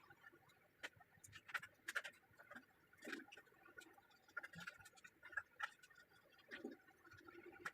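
Faint, irregular clicks and light taps of tools and small parts being handled while a DLP projector is taken apart, about eight or nine in all over near silence.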